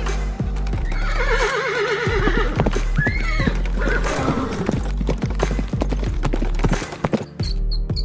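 A horse whinnying: a long quavering whinny about a second in and a shorter call a second later, with a run of hoof clip-clops, over background music.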